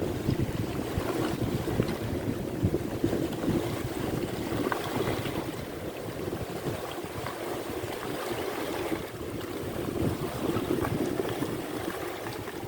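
Wind buffeting the microphone at the seashore, a rough, uneven rumble, with sea waves washing beneath it.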